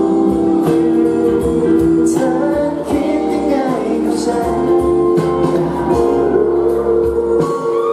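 A pop ballad performed live: a man singing into a handheld microphone over a backing track, amplified through the PA.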